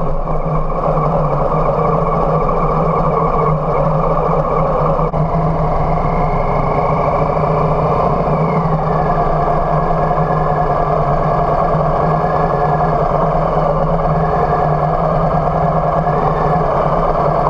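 Harley-Davidson Softail Heritage's V-twin engine running as the bike is ridden slowly, its pitch rising for a couple of seconds about six seconds in, then dropping back.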